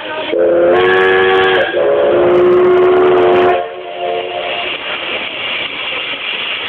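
Steam locomotive whistle blown as the departure signal: two loud blasts, each a chord of several steady tones. The first lasts about a second and a half; the second is slightly lower and longer and stops about three and a half seconds in.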